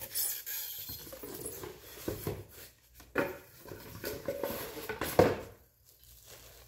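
Cardboard box insert and packing being wrestled with by hand: irregular scraping and rustling with a couple of sharper knocks, dying down near the end.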